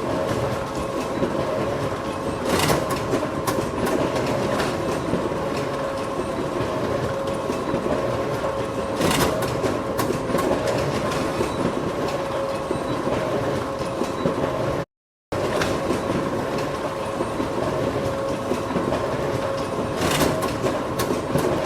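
Photocopier running continuously: a steady motor hum under a clattering mechanical rattle, with a few sharper clicks. The sound cuts out completely for about half a second roughly fifteen seconds in, then resumes.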